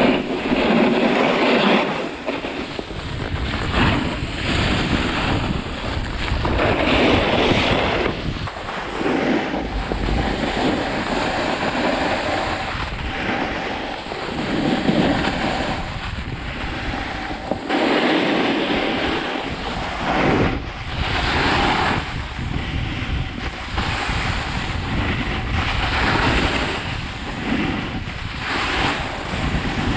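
Wind buffeting the microphone over the hiss and scrape of a snowboard sliding on packed snow, swelling and easing every couple of seconds.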